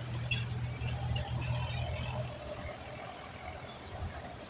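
Insects chirring in a steady high-pitched drone, with a few short bird chirps. A low rumble runs under it for the first two seconds or so, then fades.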